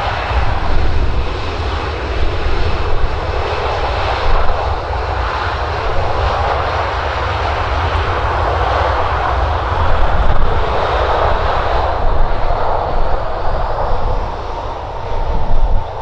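Boeing 737-800's twin CFM56 jet engines running with a steady roar and deep rumble; near the end a whine rises in pitch as the engines spool up.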